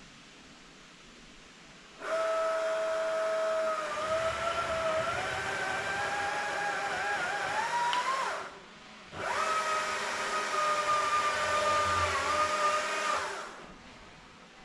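Chainsaw running at full throttle in two cuts, about six seconds and then about four seconds, with a short pause between; its high whine wavers and climbs as the chain bites into the wood while the tree is being cut.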